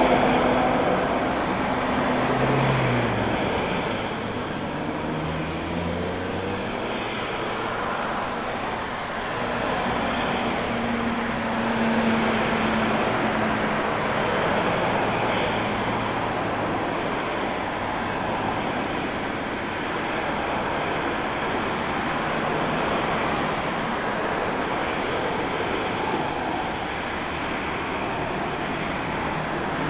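Steady roar of road traffic, with a vehicle's engine rising in pitch a few seconds in.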